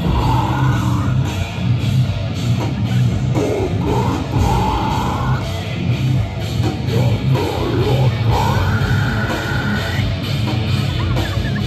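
Live heavy metal band playing loud and steady, with electric guitars and a drum kit through PA speakers.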